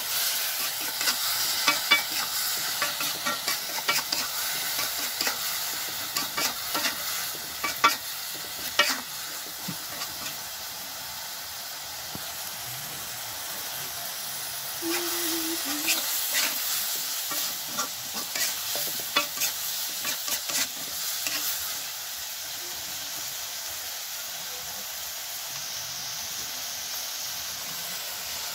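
Grasshoppers frying in a wok, sizzling steadily, while a metal spatula scrapes and clicks against the wok as they are stirred. The stirring comes in spurts, with calmer stretches of sizzle alone in the middle and near the end.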